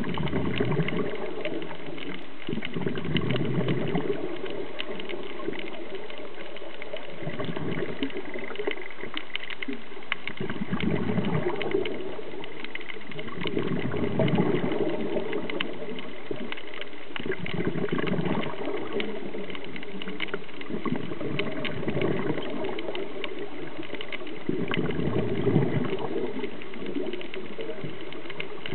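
A scuba diver breathing through a regulator, heard underwater through a camera housing. A rushing surge of exhaled bubbles comes about every three to four seconds, over a steady crackle of small clicks.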